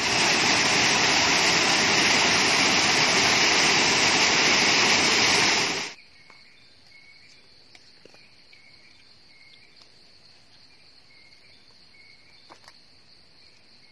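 Water pouring down a waterfall over rock, a loud even rush that cuts off suddenly about six seconds in. After it, faint forest insects: a steady high buzz with short chirps repeating.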